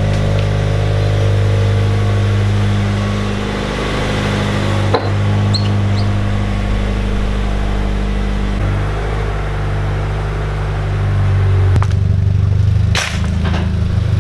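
2017 Toyota 86's 2.0-litre flat-four idling steadily through a freshly fitted Invidia N1 cat-back exhaust, a deep, even note with no revving. It grows louder near the end.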